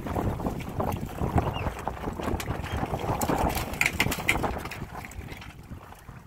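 Water slapping and splashing irregularly against the hulls of a Windrider 17 trimaran under sail, with wind noise. It grows quieter near the end.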